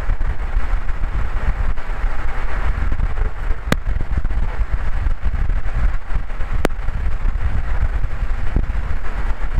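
Corvette V8 running through its stock NPP exhaust while driving: a steady low rumble with wind noise on the microphone. Two sharp clicks about three seconds apart, the popping noise in the new mic setup that still needs troubleshooting.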